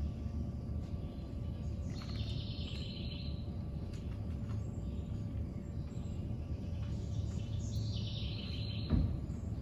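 Birds chirping in two short spells, about two seconds in and again near the end, over a steady low room hum: birdsong played as a stage sound effect. A short low thump, the loudest sound, comes just before the end.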